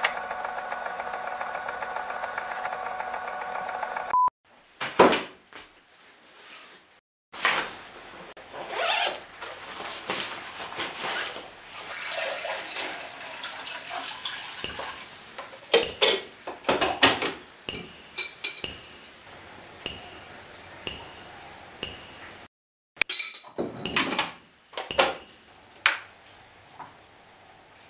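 A steady droning tone for about four seconds that ends in a short beep, then foley for making coffee with a drip coffee maker: clinks, knocks and plastic clicks of the machine, carafe and cups being handled, with a stretch of hissing noise in the middle.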